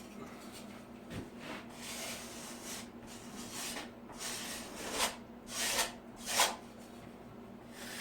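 A piece of wood scraped and rubbed along a drywall edge in several irregular strokes, the loudest a few seconds in.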